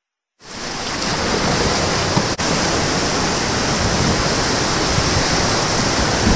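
Rushing whitewater heard close up from a packraft on the rapid: a loud, steady wash of moving water that starts suddenly about half a second in, with a brief dropout near the middle.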